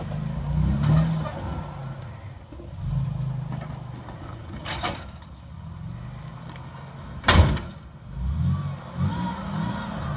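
Rock-crawling one-ton swapped 3rd-gen Toyota 4Runner, its engine revving up and easing off in turns as it climbs over rocks. Two sharp knocks cut through, the louder one about seven seconds in.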